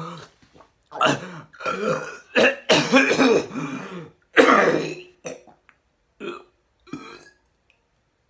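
A man belching and gagging after gulping down a whole bottle of liquid: a run of loud throaty heaves over about four seconds, then two shorter ones near the end.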